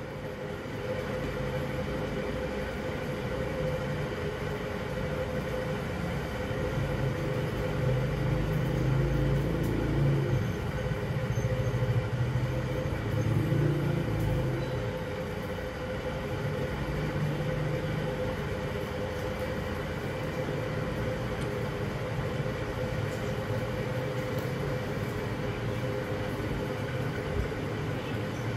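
A steady low mechanical hum with a constant tone, under a rumble that grows louder from about seven to fifteen seconds in, then settles.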